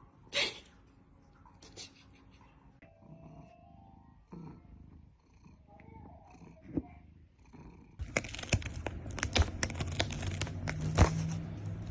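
A cat purring close to the microphone: a dense, rapid rumble that starts suddenly about eight seconds in and is the loudest sound. Before it there are only faint scattered sounds and one brief sharp noise near the start.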